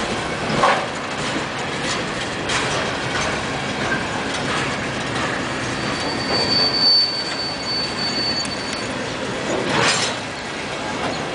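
CSX coal hopper cars rolling past: a steady rumble of steel wheels on rail, with a few sharp clacks. About six seconds in, a thin high wheel squeal rings for a couple of seconds.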